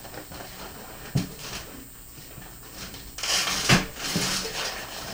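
A cardboard 30-pack case of beer cans being handled and set down: a single knock about a second in, then rustling with two more knocks a little past the three-second mark.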